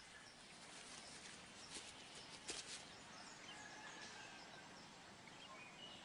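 Near silence: faint outdoor background hiss with a few faint, short, high chirps and a couple of soft ticks.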